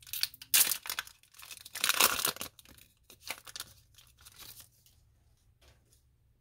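Foil Pokémon trading-card booster pack wrapper torn open by hand, with two loud rips about half a second and two seconds in. Lighter crinkling of the foil follows as the cards are slid out.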